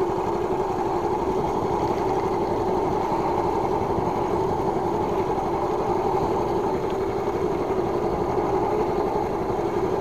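Small fishing boat's engine running steadily at an even speed.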